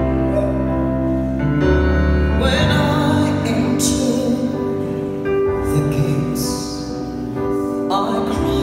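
Gospel vocal group singing live with electronic keyboard accompaniment through PA speakers, a woman singing lead with long held notes.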